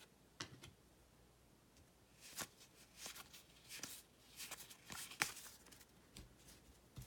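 Faint rustling and soft clicks of baseball trading cards being slid and flipped through by hand, coming in short, irregular bursts that grow busier about two seconds in.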